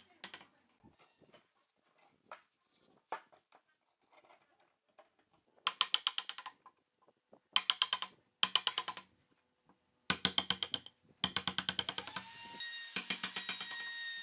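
Bursts of rapid tapping as a mallet drives a wood chisel into a solid-wood table leg, each burst under a second long with pauses between. Near the end, background music with a held, rising tone comes in.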